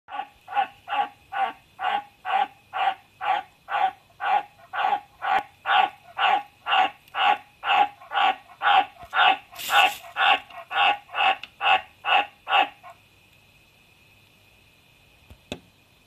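White's tree frog calling: a long, even series of short croaks, about two a second, that stops about thirteen seconds in. A small click near the end.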